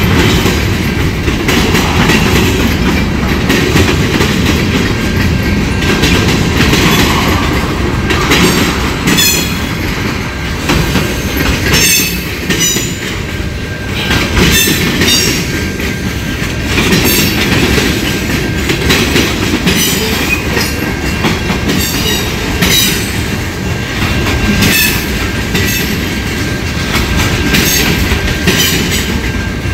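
A train rolling past: a steady rumble of wheels on rail with repeated clusters of sharp wheel clicks, the clickety-clack of wheels over the rails.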